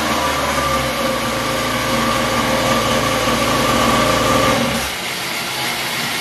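Small mini-ATV engine running steadily on a roller dynamometer, with a steady whine over a low hum; about five seconds in the hum and whine drop away as it slows down.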